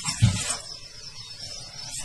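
A large dog and a small dog play-fighting on a wooden floor: a short, dull low thump about a quarter of a second in, then quieter scuffling.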